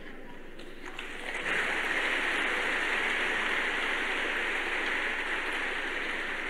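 A large audience applauding, swelling a little over a second in and then holding steady.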